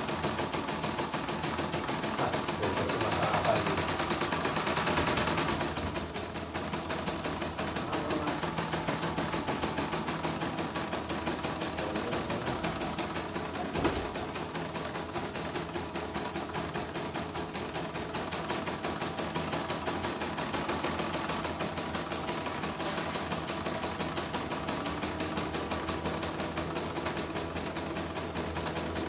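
CNY portable computerized embroidery machine with its covers removed, running a stitch-out: the needle mechanism stitching at a rapid, even rhythm, with a single sharp click about halfway through.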